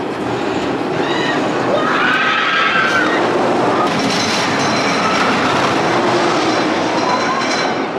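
Indiana Jones et le Temple du Péril roller coaster train running fast along its steel track: a loud, steady rattle and clatter, with a brief squeal about two seconds in.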